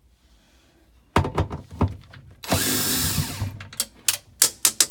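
Cordless drill-driver running for about a second, backing a screw out of a drawer slide, with sharp knocks and clicks of the tool and screw being handled before and after.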